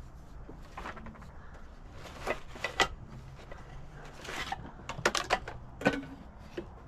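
Scattered, irregular clinks and knocks of small pieces of scrap metal being handled and sorted, a few with a brief metallic ring.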